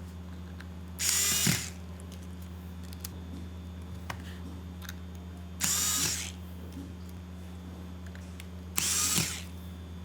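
Small electric screwdriver driving the screws that hold a replacement LCD panel in a Chromebook's top cover: three short whirring bursts, each about half a second long, over a steady low hum.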